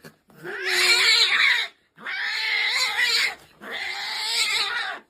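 A domestic cat yowling in three long, harsh cries, each lasting about a second and a half with brief pauses between.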